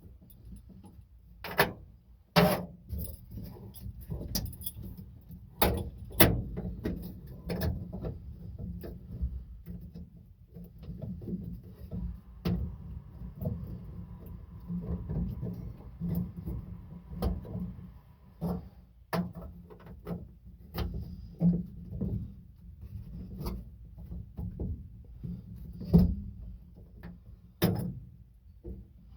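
Irregular metallic clicks, taps and jangles of hand work fitting a truck's ignition switch bezel into the dash, press-and-turn locks being worked into place, with a few sharper knocks.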